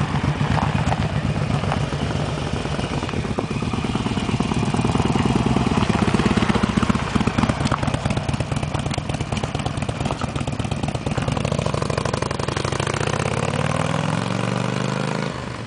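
Motorcycle engines running as a Honda cruiser rides past close by and a Harley-Davidson V-twin pulls away down the road. Near the end the Harley's engine note rises in pitch as it accelerates, then its sound drops off quickly.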